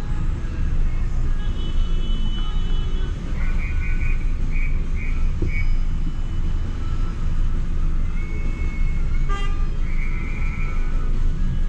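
Car horns honking in a traffic jam. A held horn is followed by a quick run of short toots, and then two more long blasts near the end, all over the low rumble of traffic.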